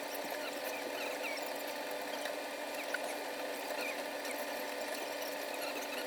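Soldering iron adding fresh solder to the pins of a circuit-board chip: flux crackling and sizzling in many small ticks and chirps, over a steady faint hum.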